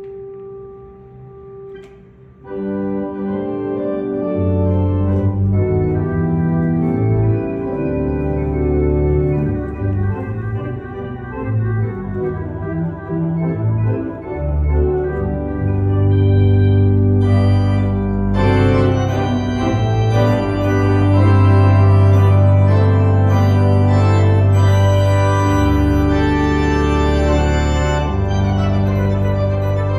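Two-manual Content hybrid digital/pipe organ played loud with full sustained chords over a deep pedal bass. A few soft held notes give way to the full sound about two and a half seconds in, and bright high stops join a little past halfway.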